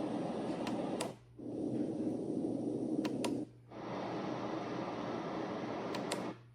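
LIORQUE sunrise alarm clock's sound machine playing a steady white-noise-like sound. It cuts out briefly three times, about a second in, at three and a half seconds and near the end, each time just after a pair of light clicks, as the sounds are switched.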